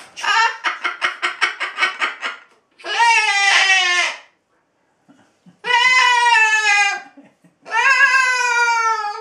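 Cockatoo calling loudly: a rapid string of short squawks, then three long drawn-out cries, each sliding slightly down in pitch.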